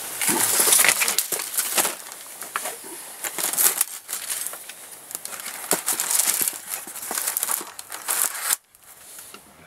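Packaging crinkling and rustling, with small clicks and knocks, as the parts of an MX-80 pistol crossbow are taken out of the box and handled. Loudest in the first two seconds, then on and off, stopping about a second before the end.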